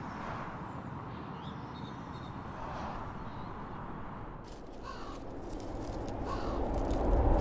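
Outdoor park ambience: a steady hiss of air and background noise with a few faint, short bird calls, swelling louder near the end.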